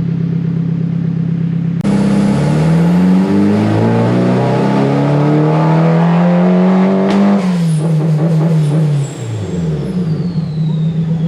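Turbocharged SR20DET four-cylinder in a 240SX S14 on a chassis dyno, doing a full-throttle pull. It idles, then from about two seconds in it pulls hard with the pitch climbing steadily for about five seconds against the dyno's load. It then lifts off, and the revs drop back to idle.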